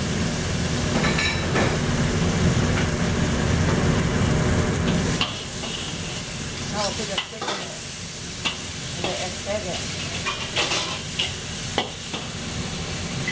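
Vegetables sizzling in a hot carbon-steel wok while a metal wok spatula stirs them, scraping and clacking against the pan in scattered strokes. A heavy low rumble sits under the sizzle for about the first five seconds, then drops away.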